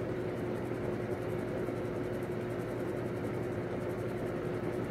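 Steady machine hum with a constant droning tone and a soft hiss, from an appliance running in the room.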